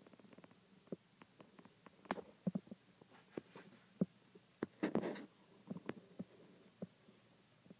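Faint, irregular clicks and light knocks of handling noise from a hand-held camera as it is moved and panned, with a brief rustle about five seconds in.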